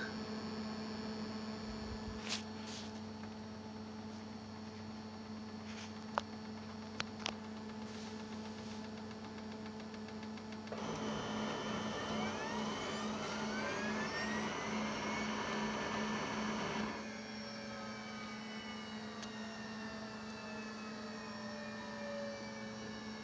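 HP LaserJet 5M laser printer warming up after power-on: its cooling fan hums steadily, with a few light clicks. About eleven seconds in, an internal motor starts with a rising whine and the mechanism runs louder for about six seconds, then cuts off and the whine falls away as it winds down.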